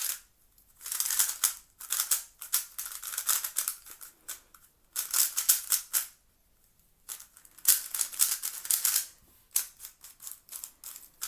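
MoYu WeiLong WR M magnetic 3x3 speed cube being turned fast, its dry, unlubricated plastic layers clicking and clacking in about half a dozen bursts of rapid turns with short pauses between.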